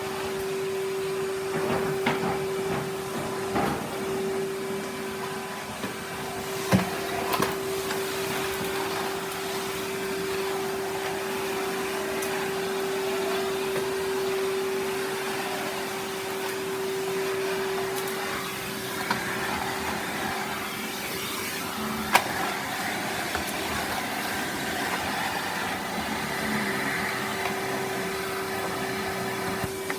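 Henry canister vacuum cleaner running steadily, its motor giving a constant hum with suction noise over it. A few sharp clicks and knocks cut through, the loudest about seven and twenty-two seconds in.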